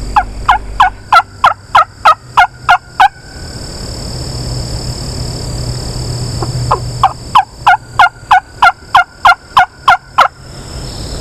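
Turkey call run in hen yelps: two series of about ten loud, evenly paced, falling two-note yelps, about three a second, with a pause of a few seconds between the series.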